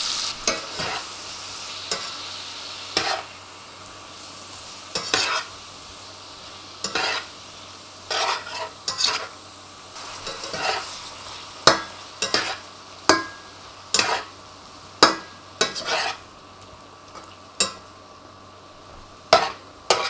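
Strips of pork schnitzel searing in hot fat in a black steel pan, the sizzle dying down over the first few seconds to a softer frying hiss. A metal spatula scrapes and knocks against the pan at irregular intervals, about one or two strokes a second, as the meat is stirred for a quick sear that leaves it raw in the middle.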